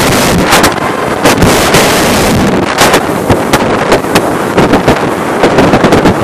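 Loud wind rushing over the microphone of a camera flying fast through the air, buffeting in uneven gusts.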